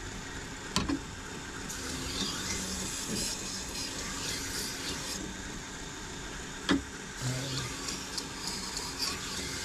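Toolker 1x30 belt grinder running steadily while a knife edge is worked on a polishing belt to take out a small chip, with a couple of sharp knocks of the blade against the machine.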